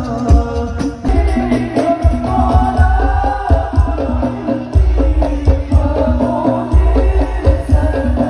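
Amplified Islamic sholawat music: a lead voice singing a devotional melody over a heavy, deep drum beat and jingling tambourine-like percussion.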